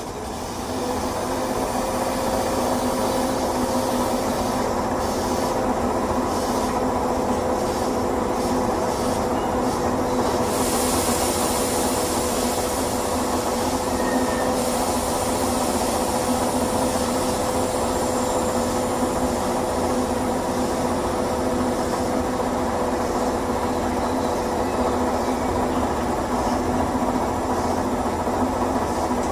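Keisei 3500 series electric train standing at the platform, its onboard equipment giving a steady hum with a few held tones. A hiss of air joins about ten seconds in and carries on more faintly.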